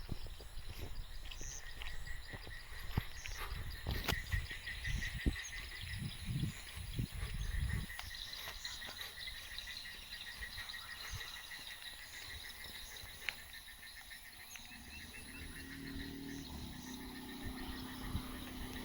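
A chorus of frogs and insects calling in quick, even pulsing trills. There are low knocks and rumbles in the first half, and a vehicle's engine hum comes in near the end.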